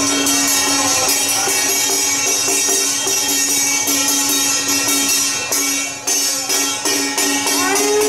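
Traditional Taiwanese temple ritual music: cymbals and small gongs clashing in a dense, fast clatter over a steady held wind-instrument tone, with a few sliding notes near the end.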